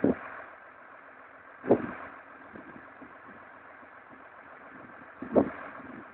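Wind buffeting the microphone in short gusts, about two seconds in and again near the end, over a faint steady engine hum.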